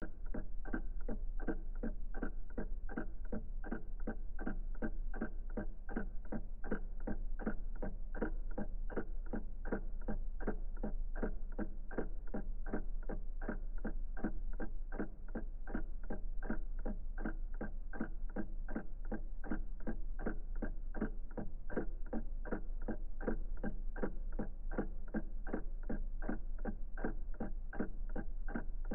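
Old mechanical clock ticking at a steady, even rate, with a faint low hum underneath.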